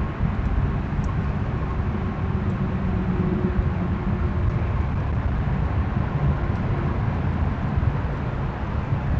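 Steady low outdoor rumble, with a faint humming tone rising out of it for a few seconds near the middle.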